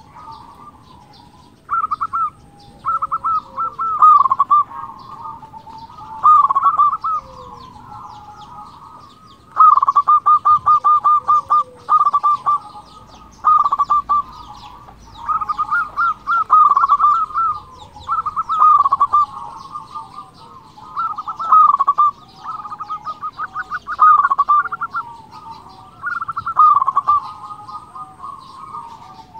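Local male zebra dove (perkutut) in full song ("gacor"): repeated phrases of fast staccato coos, each about a second long, coming every couple of seconds, with fainter cooing between phrases.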